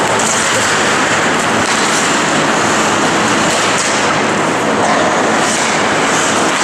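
Steady din of an ice hockey game in an indoor rink, with skate blades scraping the ice in short high strokes.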